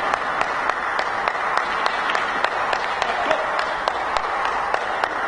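Arena crowd applauding steadily, with many sharp individual claps standing out.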